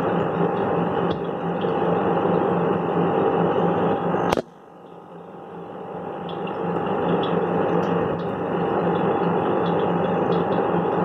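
Aquarium air pump and bubbler running: a steady hum and hiss with a pulsing low drone and small ticks on top. About four seconds in a sharp click comes, the sound drops away, then swells back up over a few seconds.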